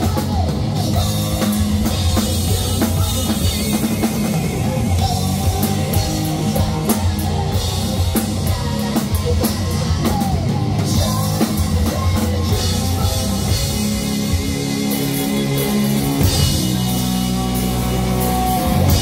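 Live rock band playing: drum kit, electric guitar and a male singer's vocals. The band holds long notes over the last few seconds.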